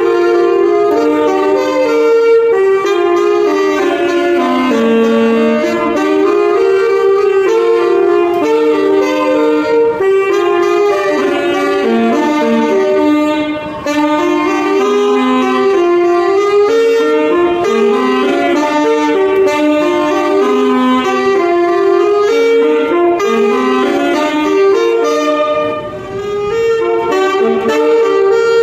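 Two saxophones playing a melody together in harmony, with two brief breaks between phrases, about halfway and near the end.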